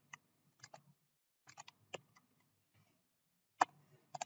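Sporadic clicks of computer keyboard keys being pressed: about ten light taps, with a pause of over a second before the last few.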